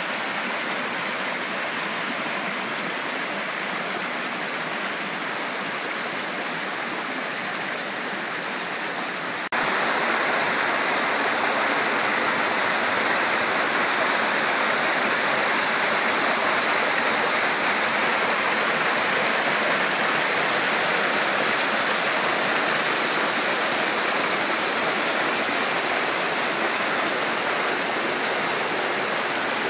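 Mountain creek rushing over rock slabs and small cascades into pools: a steady watery rush. It jumps suddenly louder and brighter about nine seconds in and holds there.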